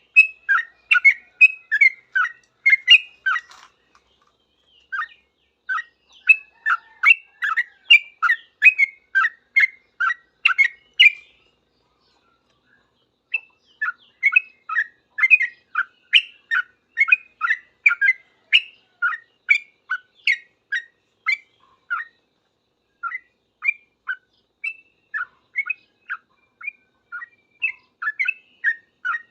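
Yellow-vented bulbul (trucukan) singing in rapid runs of short chirps, a few a second, pausing twice for a couple of seconds. This is the fast 'ngropel' chatter a bulbul gives when answering another bulbul.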